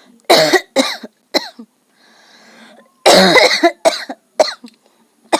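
A woman forcing dry coughs: three quick coughs, a short pause, then a longer, louder coughing bout followed by a few single coughs near the end.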